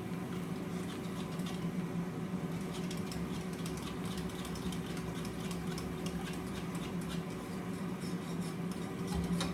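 Meat sizzling on a flat-top griddle: a dense, steady crackle that gets busier after a couple of seconds, over a steady low hum.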